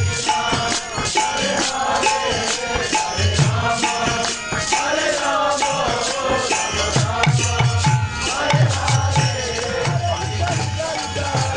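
Devotional kirtan: voices chanting a melody over steadily clashing hand cymbals, with low drum strokes coming in short runs, mostly in the second half.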